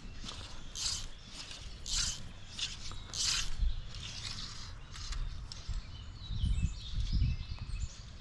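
Fly line being stripped in short pulls, giving a series of quick hissing rasps about once a second through the first half. Small birds chirp in the second half, and there are a few low thumps near the end.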